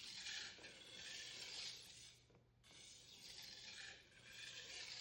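Steel blade of a Global carving knife scraping across a 400 grit Naniwa waterstone in light edge-leading strokes to reduce the burr. It comes in two spells of about three seconds each, with a short break about two and a half seconds in.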